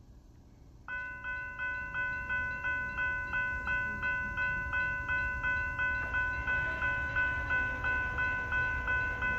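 Railroad grade-crossing warning bell starting up about a second in and ringing rapidly and evenly, about three strikes a second, as the crossing activates for an approaching train. The ringing grows fuller about six seconds in, over a low rumble.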